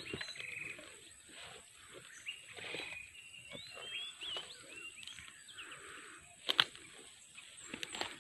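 Small birds chirping in short, quick calls, with a steady thin high hiss behind them, scattered light clicks, and a sharp double knock about six and a half seconds in.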